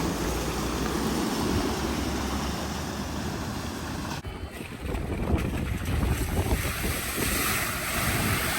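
Wind buffeting the microphone over rushing water, a steady rumbling hiss that briefly drops away about four seconds in.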